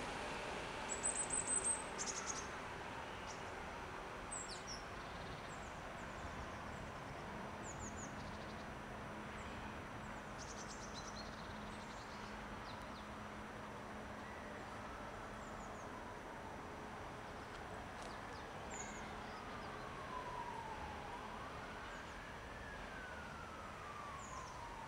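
Street ambience: a steady hum of city traffic with small birds chirping now and then, loudest about a second in. Over the last several seconds a siren wails slowly down, up and down again.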